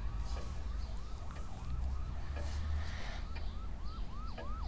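Emergency vehicle siren in a fast yelp, its pitch sweeping up and down about three times a second, faint at first and growing louder toward the end.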